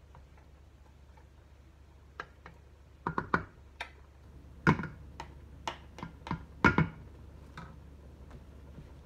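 A dozen or so irregular sharp clicks and knocks, as of kitchen utensils or cookware being handled, starting about two seconds in; two louder knocks come about halfway and about two-thirds through. A faint low hum runs underneath.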